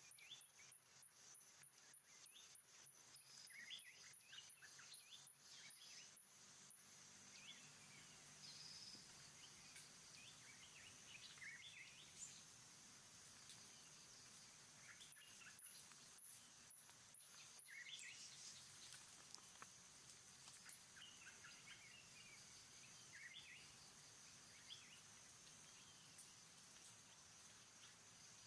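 Faint forest ambience: a steady high insect drone, a rapid pulsing insect trill that stops about seven seconds in and returns briefly around fifteen seconds, and scattered short bird chirps.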